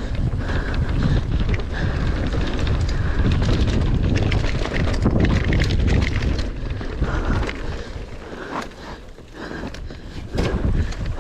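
Mountain bike being ridden fast down a rough trail: wind buffeting the microphone, with many knocks and rattles from the bike over bumps. The sound eases off briefly about two-thirds of the way through, then picks up again.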